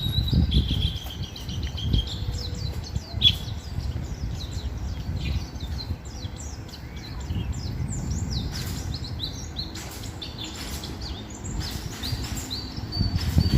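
White-eye (pleci) birds twittering in a stream of rapid, short, falling chirps, over a steady low rumble.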